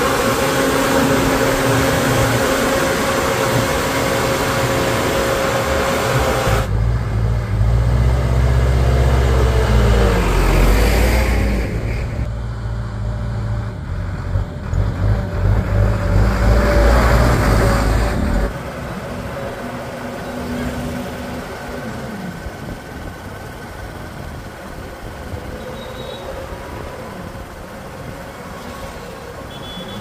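Bull backhoe loader's diesel engine running as the machine drives along a road. The engine's low rumble is loudest in the middle stretch and quieter in the last third.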